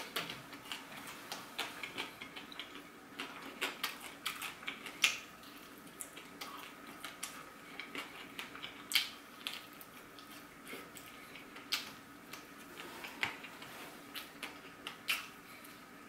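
Close-up eating sounds: irregular soft clicks and crackles of chewing and of fingers picking food apart, over a faint steady hum.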